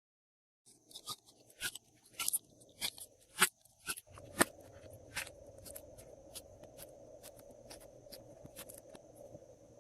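Glossy slime being handled, with sharp sticky clicks and pops, the loudest in the first few seconds. From about four seconds in, a faint steady hum runs under denser, quieter clicks.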